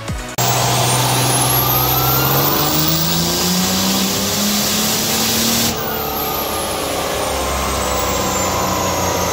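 Dodge Ram's Cummins turbo-diesel inline-six making a full-throttle dyno pull: the engine note climbs steadily in pitch with a rising turbo whistle. A little past halfway it drops off and winds down, the whistle falling away.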